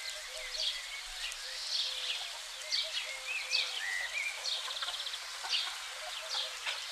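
Small birds chirping and singing in quick, overlapping short notes and little arched whistles, with a row of soft, lower notes beneath, over a steady outdoor hiss.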